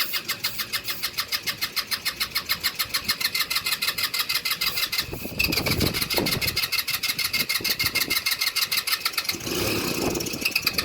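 Carbureted engine cranking on its starter motor in even, fast pulses, with a short pause about five seconds in before cranking resumes. It is a no-start being cranked after a squirt of fuel into the carburetor, and it does not settle into a steady run.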